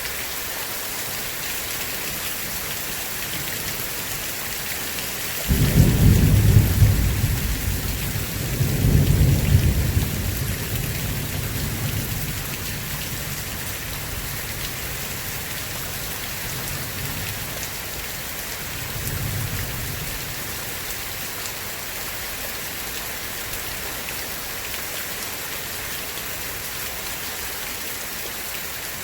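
Steady heavy rain hissing, with a clap of thunder about five seconds in that rumbles and rolls for several seconds, swells again, then fades. A smaller roll of thunder follows in the middle.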